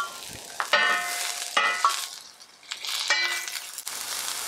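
Sliced onions sizzling in oil on a hot charcoal-heated griddle, with metal spatulas scraping across the griddle plate three times, each stroke ringing briefly.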